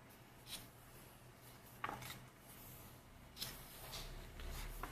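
Pages of a K-pop album photobook being turned by hand: four faint, short paper flicks and rustles, roughly one every second and a half.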